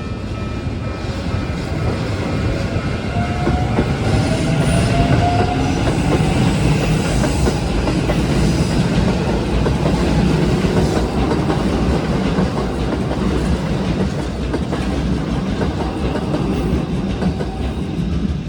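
A Keikyu Main Line electric train running past at a level crossing, its wheels clattering over the rails with a steady, loud rumble. A rising motor whine comes in about three to five seconds in. A steady ringing tone runs underneath, which fits the crossing's warning bell.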